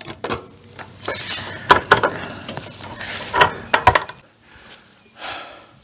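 Wooden 2x6 boards and welded wire fencing being handled on dry pine needles: irregular rustling and scraping with sharp clicks as bolts are worked through the boards and the wire mesh, busiest in the middle and ending with a short rustle.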